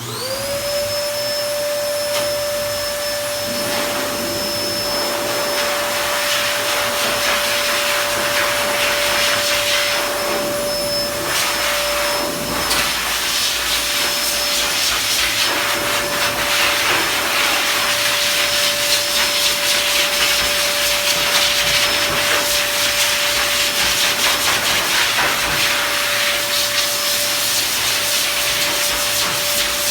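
Pet blower dryer switching on, its motor spinning up within a second to a steady high whine over a loud rush of air, then running continuously, the air noise changing in tone now and then.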